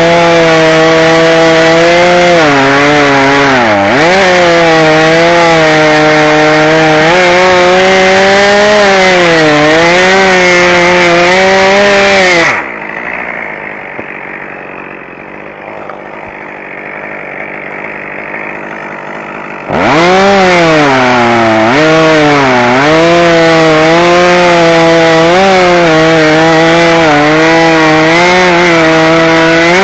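Chainsaw running at high revs and cutting wood, its pitch dipping and recovering as the chain loads up in the cut. About twelve seconds in, the saw sound drops away for about seven seconds, then it revs up and cuts again.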